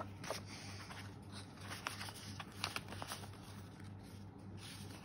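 Hands handling polymer banknotes and a card against a plastic binder pocket: faint rustling and scattered light clicks, over a low steady hum.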